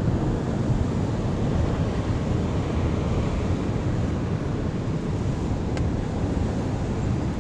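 Wind buffeting the microphone over the steady wash of surf breaking on rocks, a continuous rushing noise.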